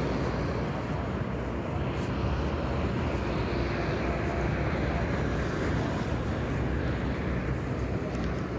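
Steady road-traffic noise from passing vehicles, heaviest in the low end and even throughout.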